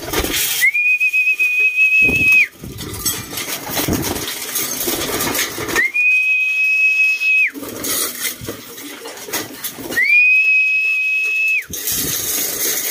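Three long, steady whistle calls on one high pitch, each lasting nearly two seconds and spaced about four seconds apart: a pigeon keeper's feeding call to his birds. Between the calls there is rustling and flapping as the pigeons crowd the feed.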